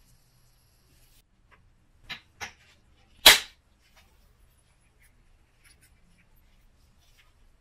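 Two light taps, then one sharp crack of an antler billet striking an oil chert preform and knocking off a flake, with a brief ring after it.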